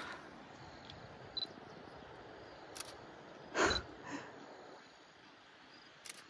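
Camera shutter clicking a few separate times over a quiet outdoor background, with one short, louder noise a little past halfway.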